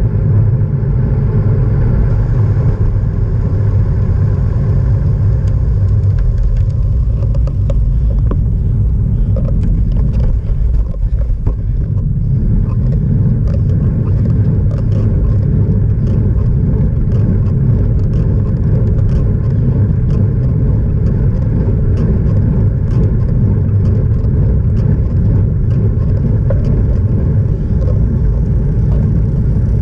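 Wind buffeting the microphone of a camera on a moving road bike: a loud, steady low rumble. Scattered light ticks come in about a quarter of the way through.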